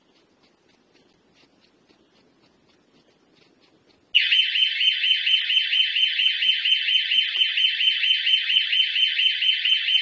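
SimpliSafe home alarm siren going off: a loud, high, rapidly pulsing electronic alarm that starts suddenly about four seconds in, after faint ticks. It is the sign that the alarm has been triggered by an intrusion.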